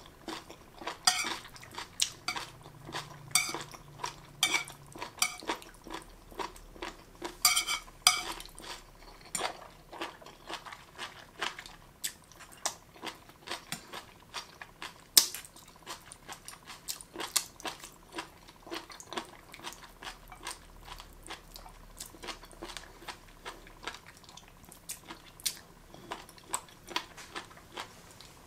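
Close-miked chewing of crunchy marinated jellyfish: a dense run of short, crisp crunches and wet clicks, with chopsticks now and then clicking against the plate.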